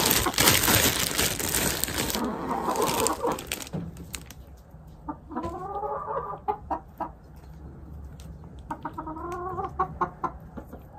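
A plastic bread bag crinkling as bread is pulled out of it, then hens clucking and calling in two drawn-out bouts, about five and nine seconds in.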